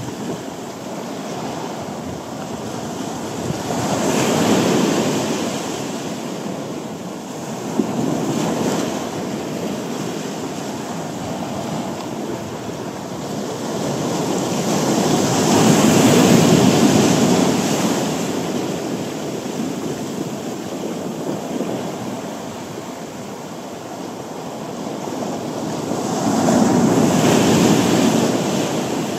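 Sea waves breaking on a beach, the surf swelling loud and fading away several times, with wind.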